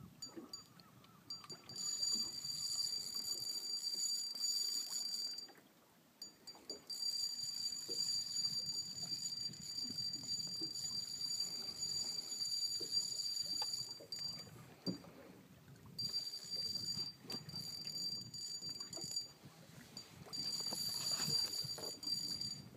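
Spinning reel's drag buzzing in long stretches of several seconds, with short gaps between, as a big northern pike takes line against it.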